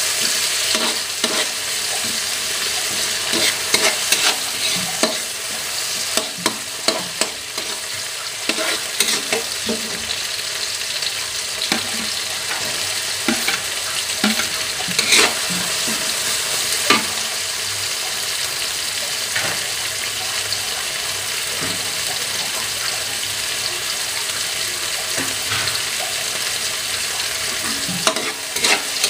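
Chopped vegetables sizzling steadily in hot oil in a wok, with a metal spatula scraping and clinking against the pan as it stirs. About halfway through, chopped tomatoes are scraped in from a plate and the stirring goes on.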